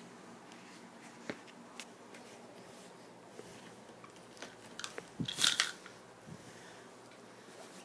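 Packaging being handled while a football jersey is unboxed: a few light clicks, then a short crinkly crunch about five seconds in.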